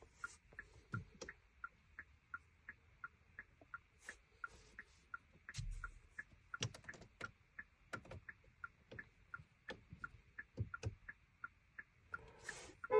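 Faint, steady electronic ticking, about two to three ticks a second, with a few scattered light clicks, while a 2020 Hyundai Palisade's smart key is being programmed.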